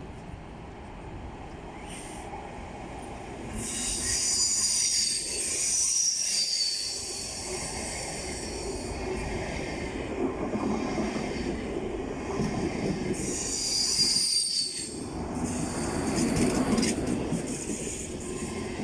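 A train moving through the station with a steady rumble of wheels on rails and high-pitched wheel squeal that comes and goes, loudest about four seconds in and again about fourteen seconds in.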